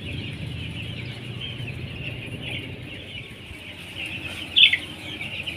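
A flock of ten-day-old broiler chicks peeping continuously, many high calls overlapping. One louder peep falls in pitch near the end.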